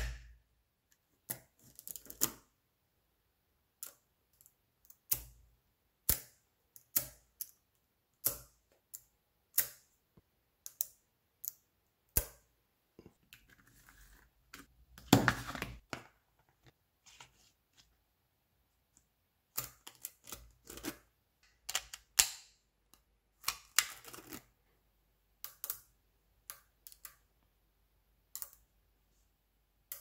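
Small neodymium magnetic balls clicking as they snap onto one another, in irregular single clicks with a louder cluster of clicks about halfway through.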